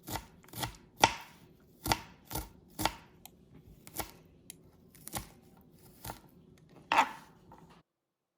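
Knife chopping fresh karpooravalli (Indian borage, ajwain) leaves into small pieces: about ten separate sharp cuts at an uneven pace, stopping short near the end.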